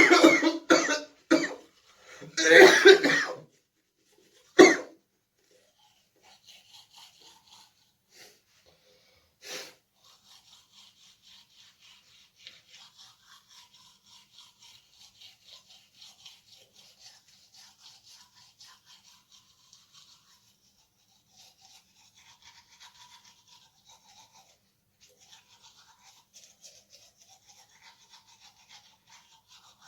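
A man sick with COVID-19 coughing hard in a fit of about five coughs in the first five seconds. Then a toothbrush scrubbing his teeth, faint and rapid, for the rest of the time.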